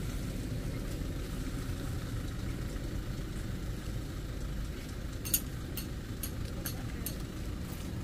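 A vehicle engine idling steadily as a low rumble, with a run of about six light clicks, roughly two a second, in the second half.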